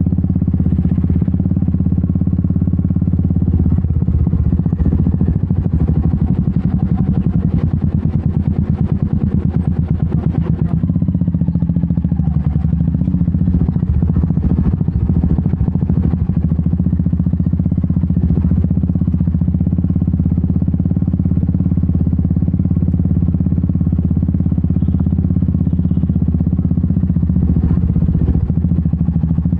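Royal Enfield Meteor 350's single-cylinder engine running steadily, its exhaust pulses dominant. Rattles and clatter from riding on a dirt road ride over it until about a third of the way in, then ease off.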